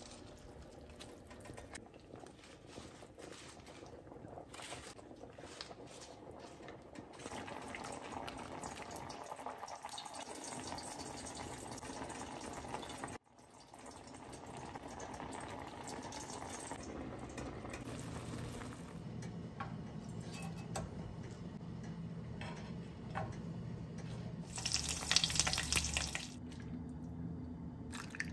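Soup simmering and bubbling in a pot, with small clicks and splashes as leaves and pieces of fish are dropped in. Near the end a short, louder liquid pour as broth is ladled into a bowl.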